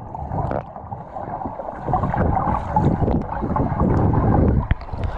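Muffled underwater rumble of swimming-pool water heard through a submerged camera, with bubbling as air is breathed out through the nose.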